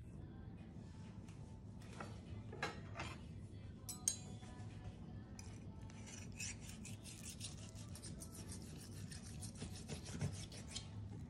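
Knife sawing through a cooked flank-steak roulade on a plastic cutting board: a few strokes about two seconds in, a sharp click about four seconds in, then a long run of quick back-and-forth cutting strokes through the second half.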